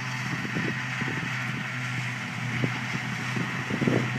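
Steady drone of a John Deere forage harvester and tractor engines working in the field, with irregular rumbles of wind buffeting the microphone, strongest near the end.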